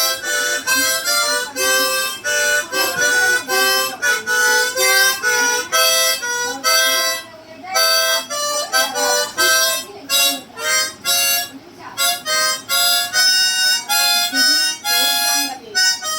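A tune played on a harmonica, one separate note after another with short breaks between them.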